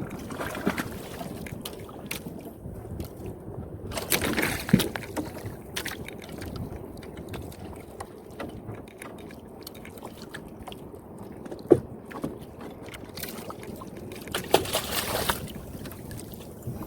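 Seawater sloshing and lapping at the shore, with two louder rushing surges about four and fourteen seconds in and scattered small clicks.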